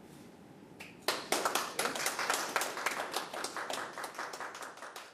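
Hand clapping starts about a second in, a brisk run of claps that fades a little near the end.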